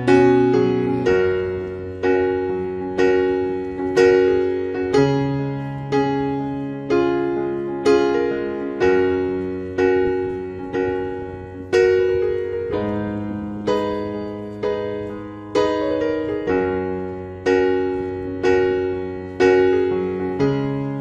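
Background piano music: slow notes and chords struck about once a second, each ringing and fading before the next.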